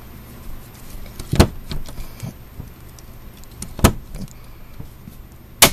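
Hand pop rivet gun being squeezed to set a steel pop rivet in a sheet-steel door plate: a few sharp metallic clicks spread over the stroke, the loudest near the end as the mandrel snaps off and the rivet sets.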